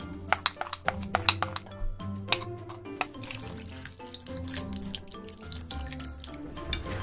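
Background music with a run of sharp clicks and taps in the first few seconds; in the second half, water is poured from a glass measuring jug into a metal pan of rice cakes and noodles.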